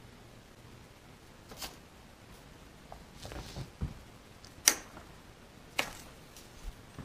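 A few scattered sharp clicks, the loudest a little past the middle, and soft low thumps just before it, as a cat jumps down from a workbench and plays with a ribbon wand.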